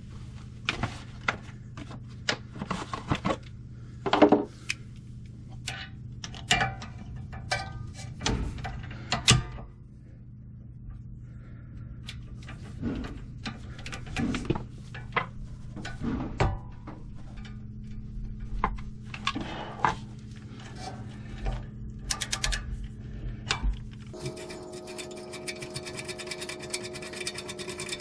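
Hand tools knocking and clinking against metal in scattered short hits, over a steady low hum. About four seconds before the end, a steady sound of several held tones sets in.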